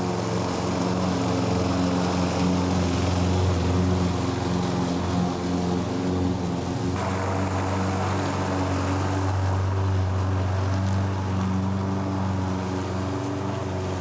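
A motor or engine running steadily, a low droning hum that changes abruptly about seven seconds in.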